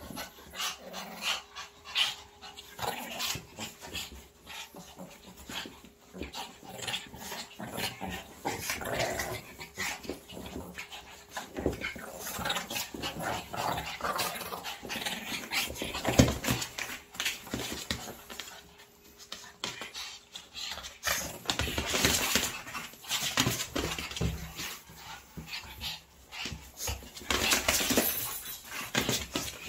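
Two Shih Tzus play-fighting: panting, snuffling and play-growling in quick, irregular bursts, with their bodies and paws scuffling on a quilt.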